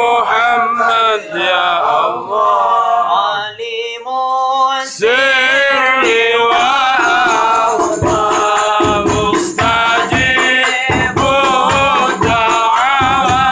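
A group of voices singing an Arabic devotional chant, joined about eight seconds in by rebana frame drums struck in a steady rhythm.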